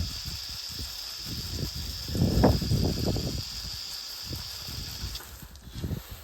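Steady hiss of a softwash spray nozzle, cutting off suddenly about five seconds in, under gusts of wind buffeting the microphone, the strongest a couple of seconds in.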